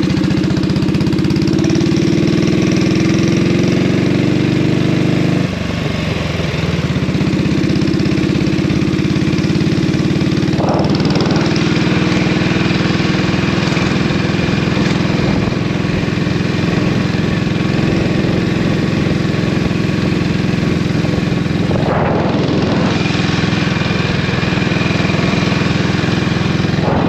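1932 Norton 16H's 500cc side-valve single-cylinder engine running steadily under way on the road. The engine note eases off briefly about five seconds in, then picks up again.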